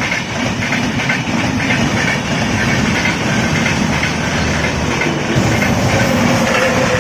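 Indian Railways train running along the track: a steady rumble with the wheels clattering rhythmically over the rail joints.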